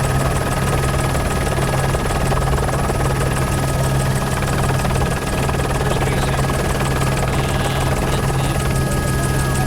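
News helicopter cabin noise picked up by the onboard microphone: a loud, steady low drone of rotor and engine with thin steady whining tones above it.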